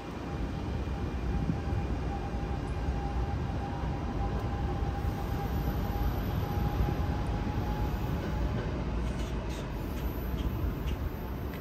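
A train running past with a steady low rumble, a faint steady whine above it, and a few light clicks near the end.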